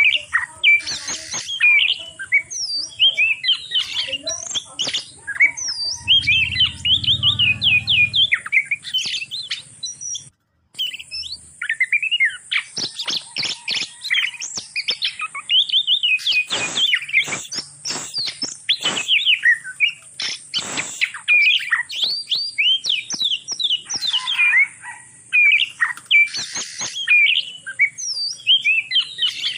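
Oriental magpie-robins (kacer) calling from a breeding pair: a fast, continuous run of chirps and sweeping whistled notes, with a flurry of sharp clicks in the middle stretch. The sound cuts out for a moment about ten seconds in.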